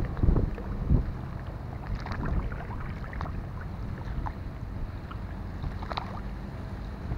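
Small waves of floodwater lapping and splashing against a crumbling mud bank, as scattered light splashes. Under them, wind rumbles on the microphone, heaviest in the first second.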